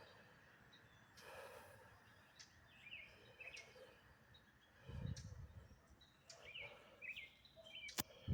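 Faint small bird chirping: short repeated calls, often in quick pairs, over quiet outdoor background. Two low bumps, one about halfway through and a louder one at the end, and a sharp click just before the end.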